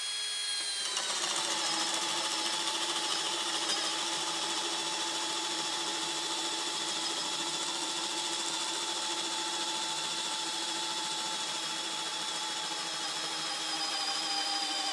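Cordless Makita hammer drill in drill mode, not hammering, on its low speed 1 setting, boring a hole in a thick wooden block with a spade bit. The motor starts up at once and its whine drops in pitch about a second in as the bit bites into the wood. It then runs steadily under load and cuts off at the end of the hole.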